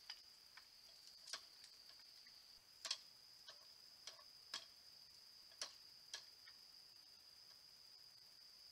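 A raccoon climbing a metal shepherd's-hook bird-feeder pole: about eight faint, sharp clicks and taps at irregular intervals as its claws and the hanging feeder trays knock on the metal, the loudest a little under three seconds in. A steady high-pitched drone runs underneath.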